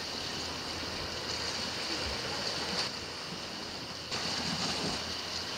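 Sea surf washing against a rocky shore, a steady rushing noise.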